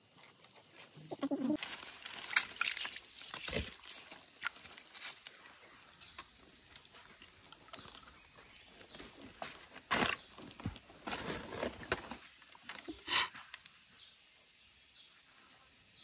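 Irregular rustling of dry leaf litter and light clicks of thin bamboo sticks being handled, with a few sharper clicks near 10 and 13 seconds in.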